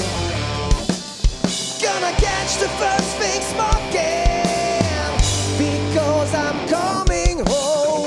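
Live blues-rock band playing an instrumental passage: a lead line with bent, wavering notes and one long held note about four seconds in, over a driving drum kit and bass.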